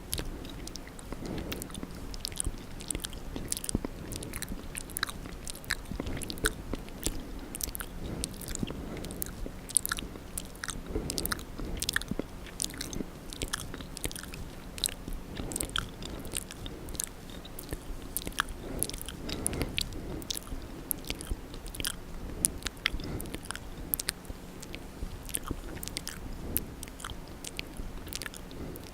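Wet ASMR mouth sounds close to the microphone: lips and tongue smacking and clicking in a quick, irregular run of sharp wet clicks.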